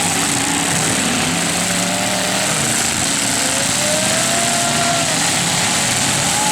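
Many demolition derby cars' engines running and revving together, a steady loud din with engine pitches rising and falling, one climbing whine about three to five seconds in.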